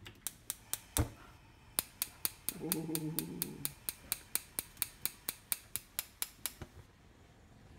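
Gas stove burner's spark igniter clicking in a fast, even series, about four clicks a second, as the burner is lit under a pot, with a single heavier knock about a second in.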